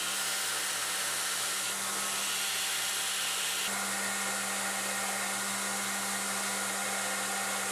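Belt grinder running with a Damascus steel knife blank held against the belt to grind its profile: a steady motor hum under an even grinding hiss, the tone shifting slightly about halfway through.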